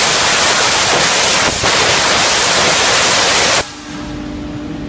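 Compressed-air blow gun blasting a loud, steady hiss, with a short dip about a second and a half in. The blast cuts off about three and a half seconds in, leaving a quieter steady hum.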